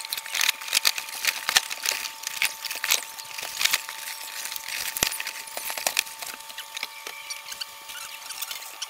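Crisp crackling, rustling and small taps of packaging being handled and opened, irregular and busy, over a faint steady hum.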